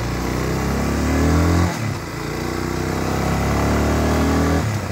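Motorcycle engine accelerating through the gears: the pitch rises, drops at a gear change about two seconds in, then rises again until another shift near the end.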